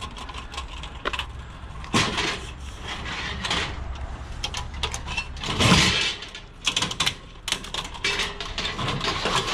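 Scrap metal being handled and loaded: irregular clanks, clicks and rattles, with a sharp knock about two seconds in and a louder clatter around the middle.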